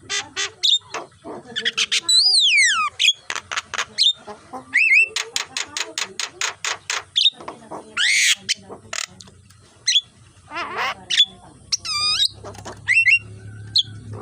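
Javan myna singing a varied, chattering song: fast runs of harsh clicks mixed with short whistles and whistled glides, one falling steeply about two seconds in.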